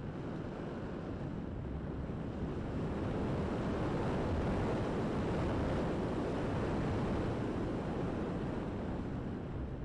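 Airflow rushing over the onboard camera's microphone on a RocHobby V-tail RC glider in flight: an even rush of wind noise with no motor note, swelling louder in the middle.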